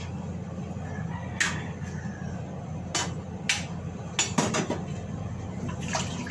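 A metal cooking utensil tapping and scraping against a pan on the stove, about seven short sharp clinks spread irregularly, three of them close together past the middle, over a steady low hum.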